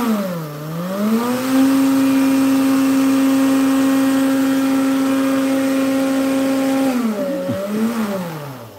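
High-powered countertop blender grinding a dry mix of flaxseed and powders. The motor dips in pitch, climbs to a steady high whine that holds for several seconds, then winds down and stops near the end.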